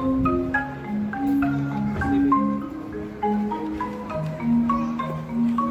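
Marimba played with mallets: a quick melody of struck notes over a line of longer, lower notes.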